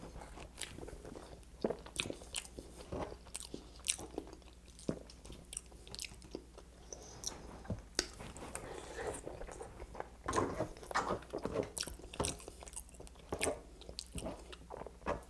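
Close-miked chewing and wet mouth sounds of a person eating poutine, fries in gravy, with irregular sharp clicks and ticks throughout and the occasional tap of a fork in the bowl.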